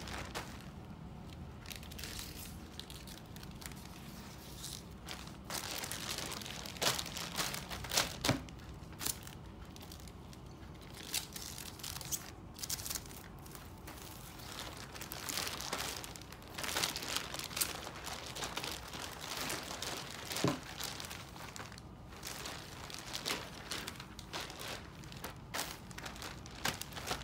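Clear plastic packaging bag crinkling and crackling irregularly as it is handled, in scattered sharp bursts.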